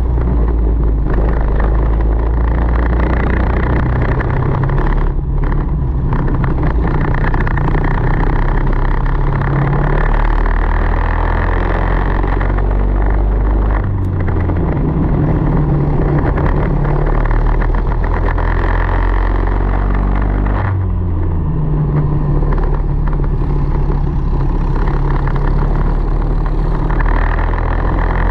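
Onboard sound of a racing kart's Tillotson 225 single-cylinder four-stroke engine at race pace, the revs dropping about four times for corners and climbing again on the straights, over a steady hiss.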